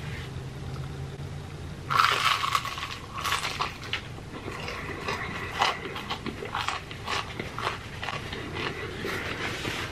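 Biting into the crispy breaded crust of a fried chicken thigh, with a loud crunch about two seconds in, followed by crunchy chewing in short irregular bursts.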